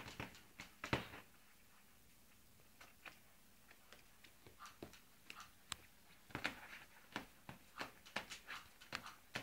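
Puppies tussling in a dog bed: faint, irregular little squeaks and scuffling clicks. A quieter stretch comes in the first few seconds, and the sounds grow busier in the second half.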